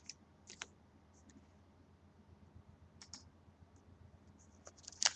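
A few faint, scattered clicks and taps from handling trading cards. Near the end a foil card-pack wrapper starts to crinkle as it is torn open.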